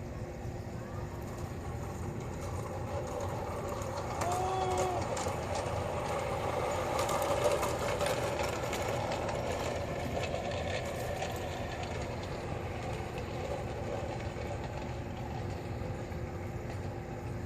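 LGB G-scale model train running on garden track, growing louder as it passes close from about four to eleven seconds in, with its wheels clicking over the rail joints. A brief high note sounds once about four seconds in.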